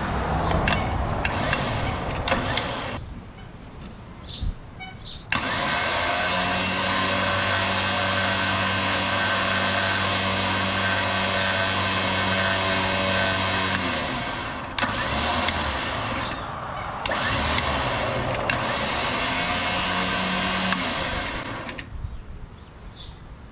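Champion electric winch motor running in several bursts as it is worked in and out from a wireless remote: a run of about three seconds, a pause, a long steady whine of about eight seconds, then two shorter runs.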